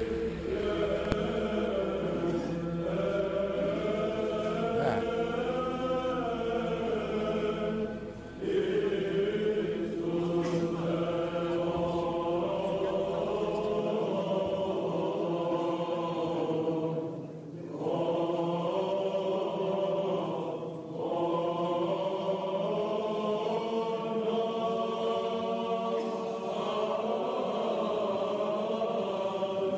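Choir chanting a slow, melismatic melody over a held drone note, in the manner of Byzantine chant, with short pauses between phrases about 8, 17 and 21 seconds in.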